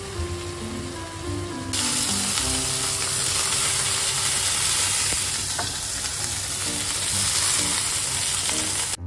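Slices of pork belly frying in a nonstick pan, sizzling steadily as they are turned with chopsticks; the sizzle gets louder about two seconds in and cuts off suddenly near the end.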